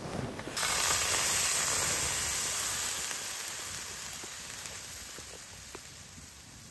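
Shakshuka sauce poured from a pouch into a preheated pan on a wood stove, sizzling as it hits the hot metal. The sizzle starts suddenly about half a second in and slowly dies away as the pan cools under the sauce.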